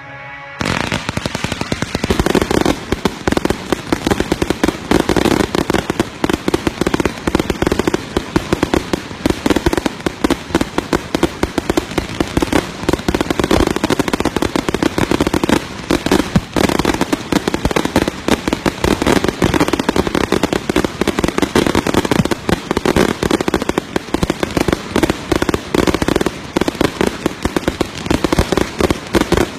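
Fireworks going off in a dense, rapid barrage of bangs and crackles that starts abruptly about half a second in and keeps on without a break.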